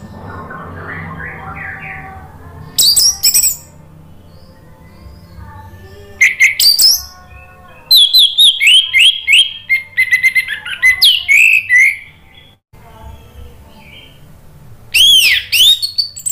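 Orange-headed thrush (anis merah) singing: loud, short bursts of high, rapidly varied whistled notes, with a long run of quick notes in the middle. A low steady hum runs underneath.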